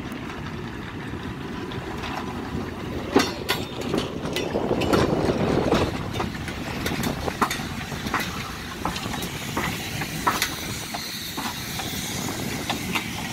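Ty42 steam locomotive rolling slowly past, its wheels and running gear clanking and knocking irregularly over the rails, with a hiss of steam that swells about five seconds in.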